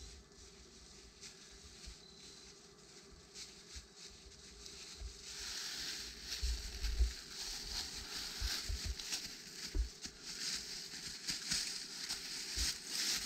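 Footsteps crunching and shuffling through dry fallen leaves, growing louder about five seconds in and carrying on as a steady crackling, with occasional low thumps.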